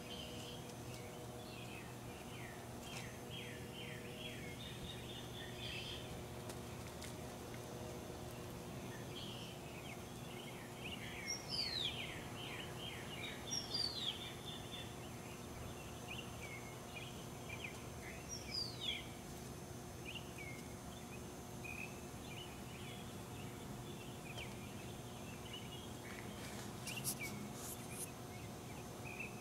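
Birds calling: rapid series of short chirps and trills, with a few louder down-slurred whistled notes, over a steady low hum. A brief click near the end.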